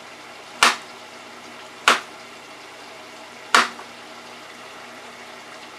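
Hot oil bubbling steadily in an electric deep fryer with French fries cooking in it, broken by three sharp knocks about a second or two apart.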